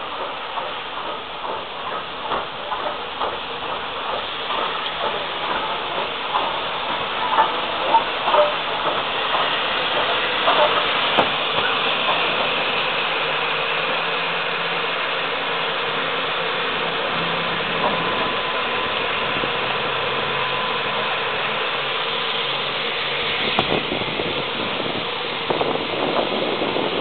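LNWR Super D 0-8-0 steam locomotive arriving at slow speed, its rods and wheels clanking and knocking irregularly over the rail joints, then a steady hiss of steam from about twelve seconds in. Microphone rustle comes in near the end.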